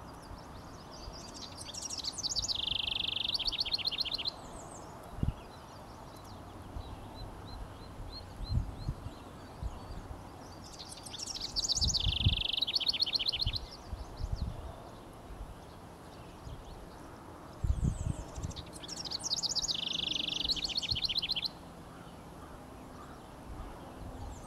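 House wren singing: three songs about eight seconds apart, each two to three seconds long, opening with a few high notes and running into a fast trill of repeated notes. A few short low thumps fall between the songs.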